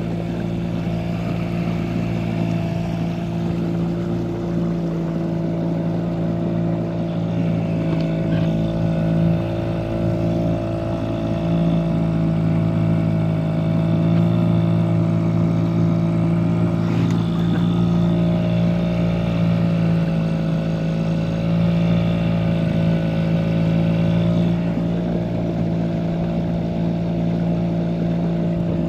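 Diesel engine of a small open boat running at a steady speed while under way on calm water, an even sound that changes little.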